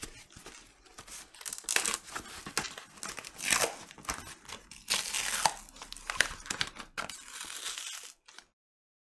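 Cardboard record mailer being torn open by hand: irregular tearing and crinkling of cardboard and packing tape in uneven bursts. The sound cuts off abruptly near the end.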